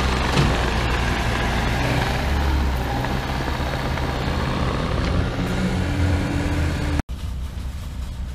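Heavy earth-moving machinery engine running steadily with a low hum. It drops out for an instant about seven seconds in, then goes on quieter.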